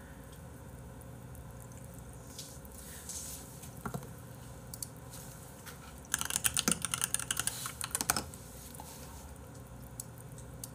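Rapid typing on a computer keyboard for about two seconds, starting about six seconds in, with a few scattered clicks before it over quiet room tone.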